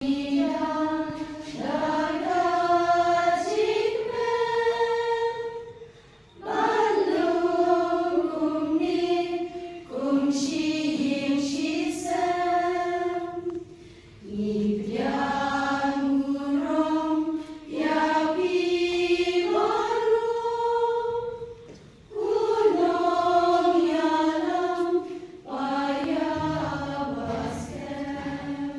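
A choir singing in long phrases, with short breaks about every eight seconds.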